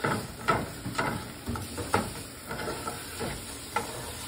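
Silicone spatula stirring chard sautéing in olive oil in a frying pan, scraping about twice a second over a steady sizzle.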